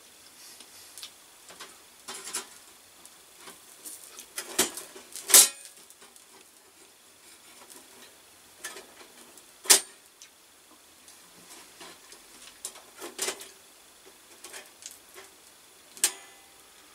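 A metal fork clinking and scraping on the grill grate of a small Bestargot Pixel gas grill as meat is lifted and turned. The clicks are scattered, with the sharpest knocks about five, ten and sixteen seconds in.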